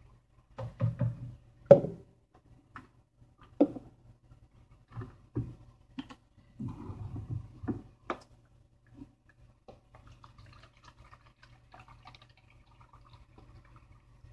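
Plastic drink jug and plastic cup being handled, with irregular knocks and thumps for the first eight seconds or so. Then comes a faint, steady trickle of red juice being poured from the jug into the cup in the last few seconds.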